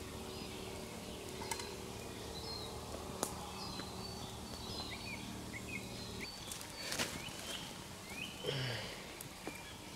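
Outdoor forest ambience with scattered short, high chirps and a few sharp clicks. A steady low hum stops about six seconds in.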